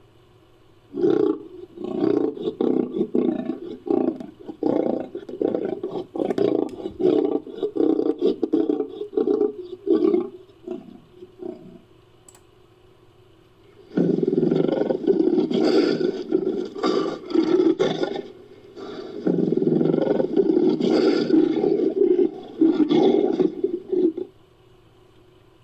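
Designed big-cat creature roars edited from lion and tiger recordings. A choppy run of growling roars starts about a second in and lasts about ten seconds; after a short pause a second, fuller stretch of roaring runs for about ten seconds.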